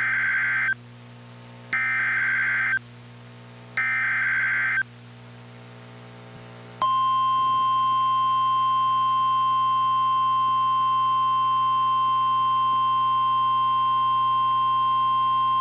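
NOAA Weather Radio Emergency Alert System signal: three one-second bursts of warbling SAME header data, then after a short pause the steady 1050 Hz warning alarm tone, held for about nine seconds. Together they announce an incoming Special Marine Warning.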